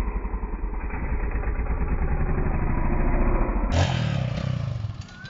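Dirt bike engine running and revving as the rider rolls on the throttle for a slow-wheelie attempt, getting louder over about three seconds. Near the end the sound changes abruptly to a quieter engine sound.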